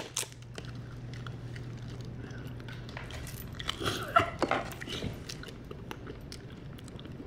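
A person biting and chewing a sheet of edible candy paper: a sharp bite at the start, then a scatter of small clicks. A brief voice sound comes about four seconds in.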